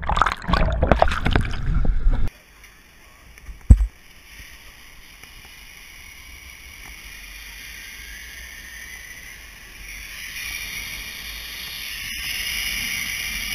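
Rushing, churning whitewater around a camera pulled under as a raft flips, cutting off sharply about two seconds in. Then a quiet, even hiss of a zip line ride that slowly grows louder as the rider gathers speed, with one sharp knock just after the cut.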